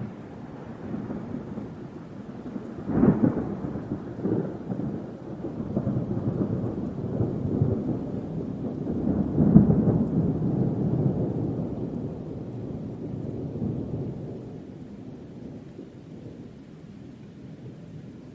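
Thunder: a sharp crack about three seconds in, then rolling rumbles that swell to their loudest near the middle and die away toward the end.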